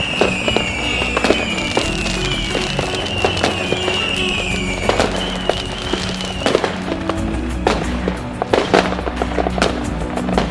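Distant fireworks popping and crackling with many sharp reports, along with a run of short falling whistles during the first six seconds or so. Music plays in the background.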